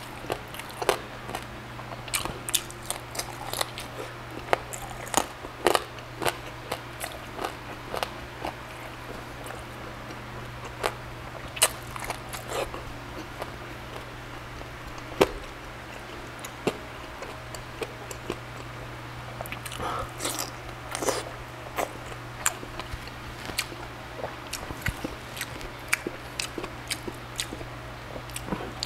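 Close-up eating sounds of crispy-skinned grilled pork belly (liempo) being bitten and chewed: irregular crunches and wet mouth clicks throughout.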